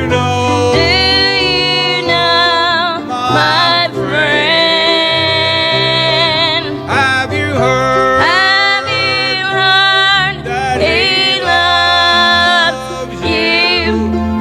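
Country-style gospel song performed with band accompaniment: a singer holds long notes with vibrato over a moving bass line.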